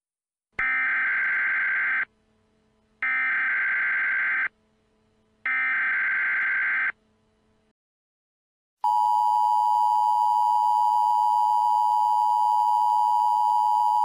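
Emergency Alert System SAME header: three bursts of digital data tones, each about a second and a half long, then, after a short pause, the steady two-tone EAS attention signal starting about nine seconds in.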